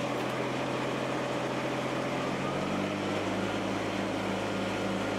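Kubota BX compact tractor's three-cylinder diesel engine running steadily, its note shifting slightly lower about three seconds in.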